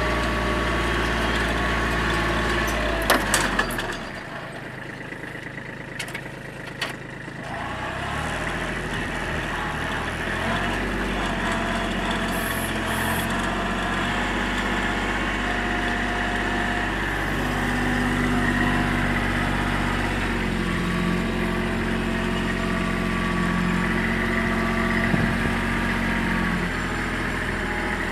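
Kubota compact tractor's diesel engine running steadily while pulling a row cultivator through soil. A few clicks come about three seconds in, then the engine drops to a lower speed for about four seconds before picking up again.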